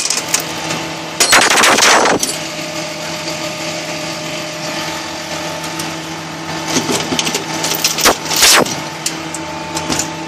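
Steel tow chains clattering as they are dropped into a metal bin. There are two long rattles, one about a second in and one near the end, with lighter clinks between, over a steady engine hum.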